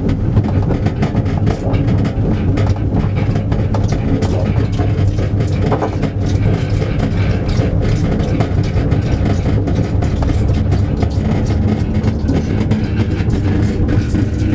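Two-wheeled pull cart carrying a camera obscura rolling along a paved road, a steady low rumble with constant small rattles and clicks, heard from inside the cart's enclosed viewing box.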